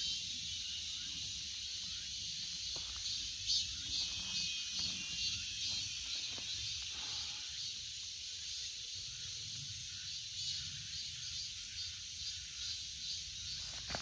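Cicadas singing: a steady, high-pitched buzzing hiss with a faint pulse repeating about twice a second.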